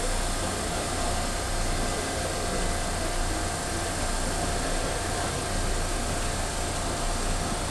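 Steady mechanical hum and hiss of railway station platform ambience, with a faint steady whine running through it.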